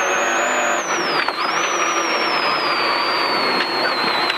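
Rally car's engine running hard on a stage, with a high whine that slides down, jumps back up about a second and a half in, then slowly drifts lower.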